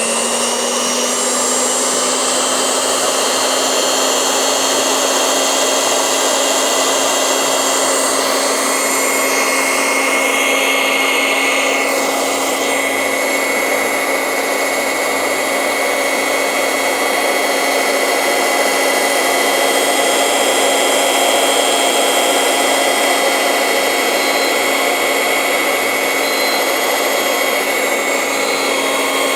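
Exata 250 W 4-inch electric cutting machine running steadily at speed: a constant motor hum with a high whine over a hiss.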